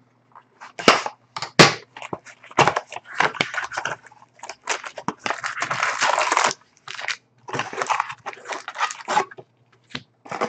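Sealed cardboard box of hockey cards being torn open by hand, then its foil card packs handled: a run of irregular crinkles and rips, with one longer tearing noise about five seconds in.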